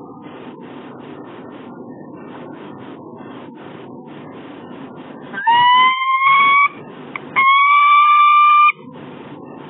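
Peregrine falcon giving two long, loud calls, the first rising in pitch and the second held level, about half a second apart, over a steady background rush of noise.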